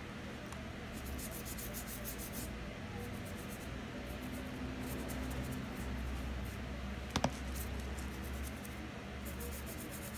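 Toothbrush bristles scrubbing a spiny cactus stem in quick short strokes, in bursts of a second or so with brief pauses, to scrub off mealybugs. A single sharp click about seven seconds in, over a steady low hum.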